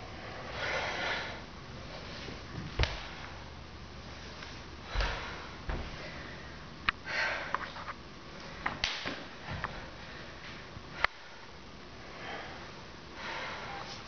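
Forceful breaths in and out through the nose, about one every two seconds, from a person working through a kung fu form. A few sharp slaps and low thumps from bare-footed movement on a wooden floor are mixed in; the loudest slaps come about three seconds in and near eleven seconds.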